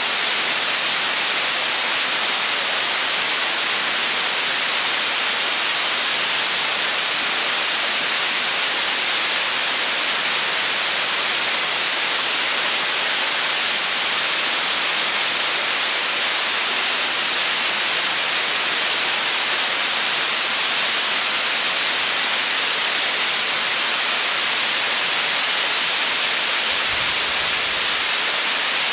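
Waterfall cascading down a rock face into a pool: a steady, loud rushing hiss, strongest in the high range, without letting up.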